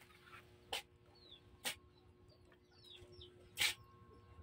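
Faint birds chirping in short chirps that fall in pitch, with three sharp clicks standing out, the first just under a second in and the last near the end.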